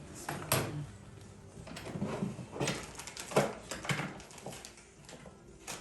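A string of irregular clicks, taps and knocks of things being handled, spaced unevenly, with the sharpest about half a second in and just past the middle.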